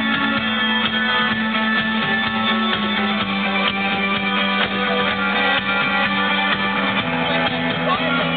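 Indie rock band playing live: strummed guitars over a bass line, in a loud, continuous band sound. The recording is low quality.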